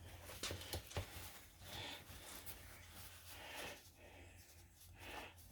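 Faint work noises: a few light clicks in the first second, then soft rubbing and handling sounds, over a steady low hum.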